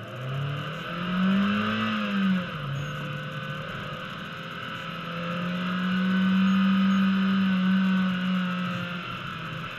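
A 2002 Mazda Miata's four-cylinder engine, heard from inside the cabin, revving up under hard acceleration. It eases off a little past two seconds in, then climbs again and holds high revs for a few seconds before dropping near the end. A steady hiss of tyres on wet pavement runs underneath.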